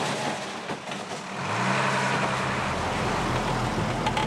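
Old Bedford army truck's engine running, its steady note coming in about a second and a half in and holding.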